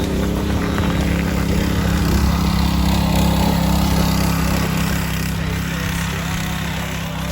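Go-kart's small engine running steadily at a constant drone.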